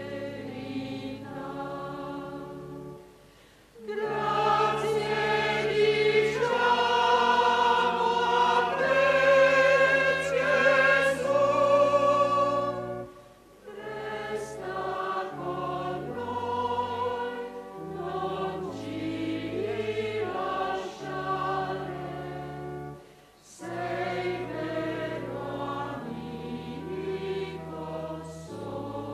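Choir singing a liturgical hymn over steady held low notes, phrase by phrase, with brief pauses between phrases three times.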